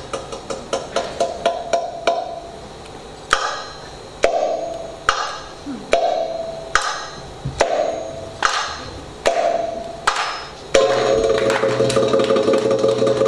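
Live Middle Eastern hand drums, frame drums and goblet drum, playing a break for the dancer: a quick run of strokes, then slow, separate accented hits about one every second, each with a short ringing note. Near the end the full band comes back in louder with sustained melody.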